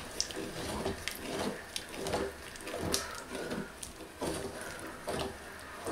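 A wooden spoon stirring lentils in a thin white sauce in a steel pot: repeated soft wet scraping strokes, about two a second.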